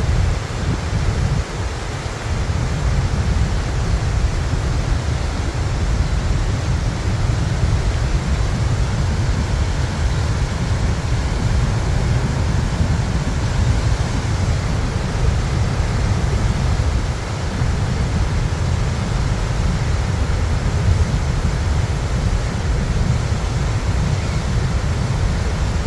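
Horseshoe Falls at Niagara, heard from the gorge rim: a steady rushing of falling water, heaviest in the deep lows, with no breaks.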